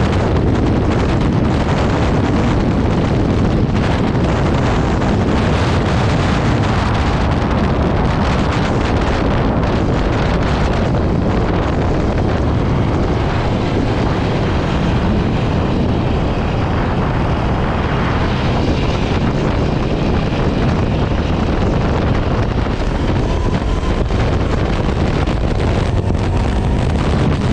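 Heavy wind noise on the microphone of a 2018 Aprilia RSV4 RF being ridden at speed on a race track, with the bike's V4 engine running underneath. It is loud and steady throughout.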